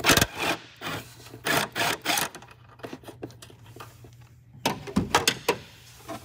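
Metal clicks and rattles of winch cable ring terminals and a nut being handled and fitted at a car battery terminal, in short clusters near the start, around two seconds in and again about five seconds in.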